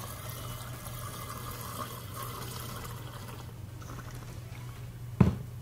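Homemade sports drink poured from a bottle into a cut-glass tumbler, a steady pour as the glass fills. A single sharp knock about five seconds in.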